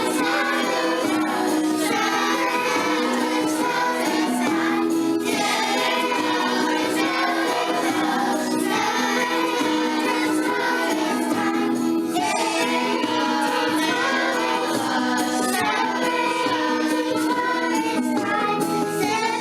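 A group of young children singing a harvest song together, with musical accompaniment.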